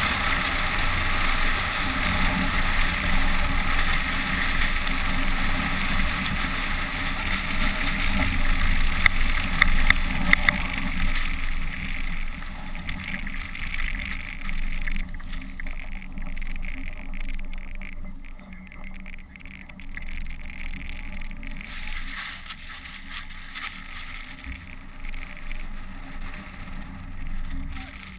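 SUV driving over packed snow, heard from outside the car body: steady wind on the microphone with tyre and engine noise. The noise eases off from about halfway through as the car slows, and a few sharp clicks come about nine to ten seconds in.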